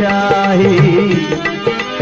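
Bhajan music between sung lines: a steady drone and a wavering melodic line over regular hand-drum strokes.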